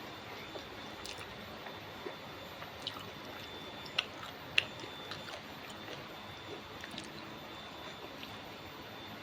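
Mukbang eating sounds: quiet wet chewing with scattered small clicks, and two sharper clicks a little after halfway, over a steady background hiss.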